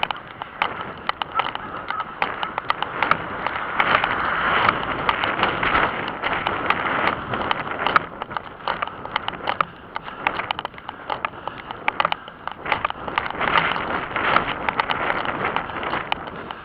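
A runner's footsteps striking paving, several quick knocks a second, over rubbing and wind noise from a handheld camera jostling with each stride.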